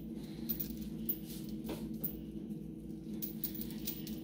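Faint handling sounds as nylon cord is threaded through steel chain links with a netting needle: light scattered clicks and one brief falling squeak near the middle, over a steady low hum.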